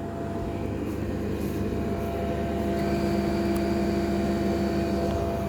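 Grant boiler running, its fan giving a steady drone with several humming tones underneath; a faint higher whine joins about halfway through.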